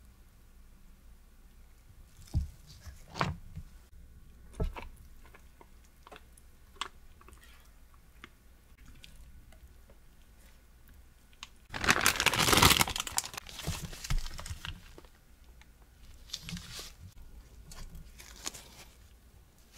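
A silicone spatula tapping and scraping in a stainless steel pan of thick corn custard cream, a few sharp knocks in the first seconds. Then a loud burst of plastic crinkling and rustling about twelve seconds in, lasting about two seconds, as cream is spooned into a piping bag, followed by a few faint crinkles.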